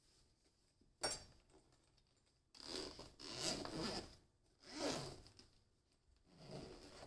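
Zipper on the DBPOWER DJS90 jump starter's hard-shell carrying case being pulled open around the case in three rasping runs, the middle one the longest. A single sharp knock about a second in, as the case is set down on the wooden table.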